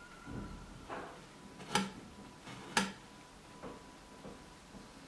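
Kitchen knife clicking and scraping against a glass cutting board as the seeds are scraped out of a split vanilla pod with the back of the blade: a few soft knocks, then two sharp clicks about a second apart.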